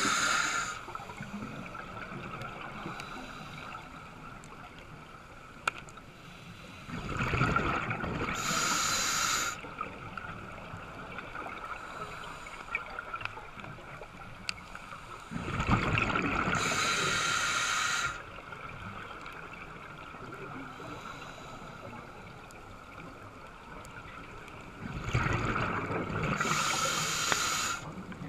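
Scuba diver breathing through a regulator underwater: three long bursts of exhaled bubbles, each two to three seconds, about every nine seconds, with a quieter hiss and a few faint clicks between.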